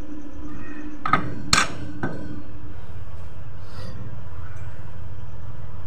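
Three sharp metal clinks about a second apart as metal scooter CVT pulley parts are handled and set down, over a steady low hum.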